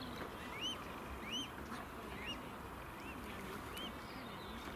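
A young waterbird chick peeping: a string of short, high, arched peeps, about one or two a second.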